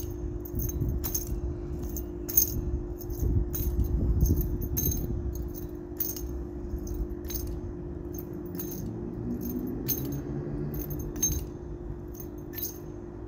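Keys on a neck lanyard jingling in short, regular bursts as the wearer does push-ups, over a steady low hum.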